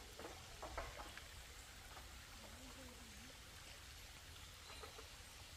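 Near silence: faint outdoor ambience with a low steady rumble and a few light clicks in the first second and again near the end.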